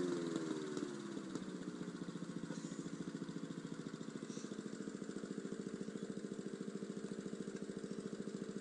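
Lawn mower engine running, its pitch falling over the first second or so as it slows, then idling steadily with a fast, even beat.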